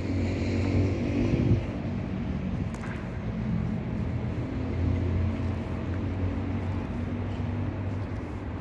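Steady low mechanical drone with a held hum, a little louder for the first second and a half.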